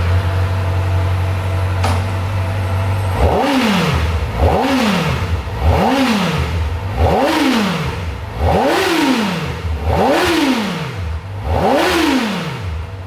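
Kawasaki Ninja ZX-4RR's 399 cc inline-four idling through its stock exhaust, then revved with seven quick throttle blips about a second and a half apart, each rising sharply and falling back to idle.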